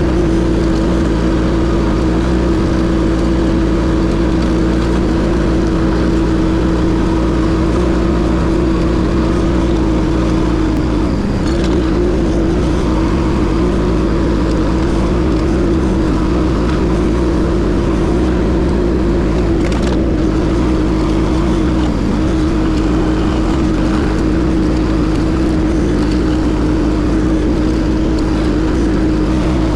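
Case TL100 mini skid steer running steadily at high throttle, driving a Toro stump grinder attachment: a loud, even engine tone that wavers slightly about 11 seconds in.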